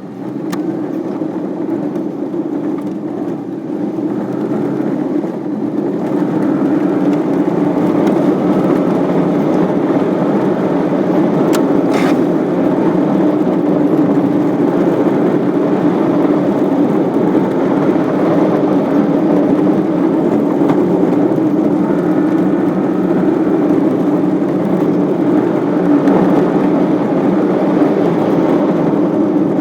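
Waterfall's steady rush of falling water, growing louder over the first several seconds and then holding level. A couple of faint clicks come about twelve seconds in.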